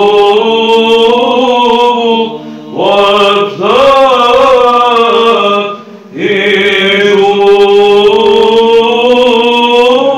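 Male monastic voices chanting a Byzantine Orthodox hymn in Arabic: a melody line moves over a steady held drone note (ison). The singing dips briefly between phrases, about two seconds in and again near six seconds.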